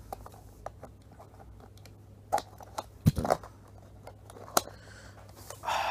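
Cardboard and plastic packaging of a diecast car box being worked open by hand: scattered soft clicks and rustles, a louder knock about three seconds in, and a short scraping rustle near the end.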